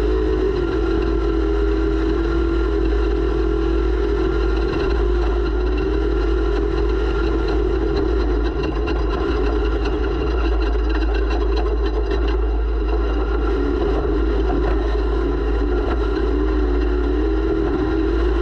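Off-road race vehicle's engine running under load, heard from a camera mounted on the vehicle. The engine note rises and falls as the revs change, over a steady low rumble.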